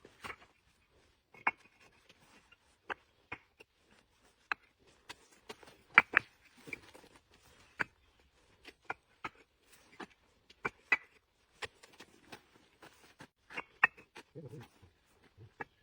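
Bricks knocking against one another as they are stacked by hand: a string of sharp, irregular clacks, a dozen or more, with short pauses between.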